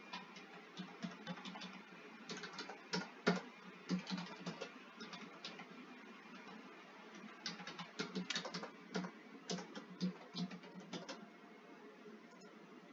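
Computer keyboard typing in short runs of keystrokes with pauses between them, stopping about eleven seconds in.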